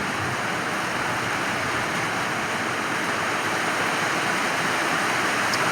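Rain falling steadily, an even unbroken hiss with no separate drops or knocks standing out.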